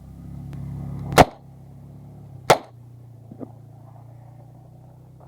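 Two 9 mm pistol shots from an Uzi Pro, about 1.3 s apart, then a much fainter crack about a second later, over a steady low hum.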